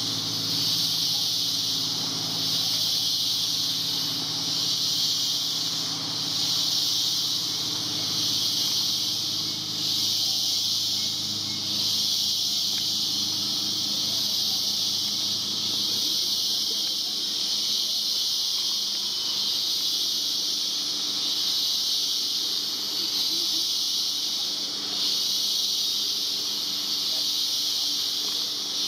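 Rainforest insect chorus: a loud, steady high-pitched hiss that swells slightly every couple of seconds. A low hum runs beneath it and fades out about halfway through.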